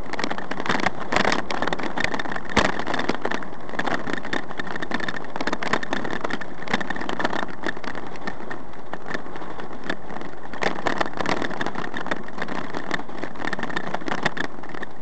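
Car driving along a highway, heard from inside the cabin: a steady hum of engine and tyres on the road, with frequent small knocks and rattles.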